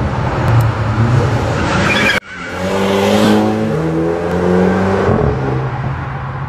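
BMW 330i (G20) 2.0-litre turbocharged four-cylinder engine and exhaust under hard throttle: a rough, noisy stretch for about two seconds, then after a sudden cut the engine accelerating, its pitch climbing in steps through the gears before fading near the end.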